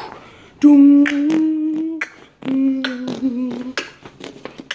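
A child humming two long, steady notes, each held for about a second and a half, with short knocks and rustles from a phone being carried in between and after.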